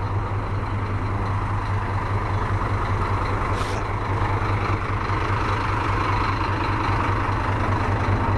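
Intercity bus's diesel engine running steadily, with a brief high hiss about three and a half seconds in.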